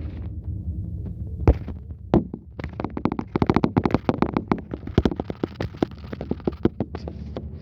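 Scania K124IB coach's straight-six diesel engine running with a low steady rumble, overlaid from about a second and a half in by a dense run of rattling knocks and clicks.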